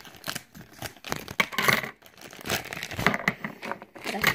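Toy packaging being handled and opened: crinkling and rustling in irregular bursts.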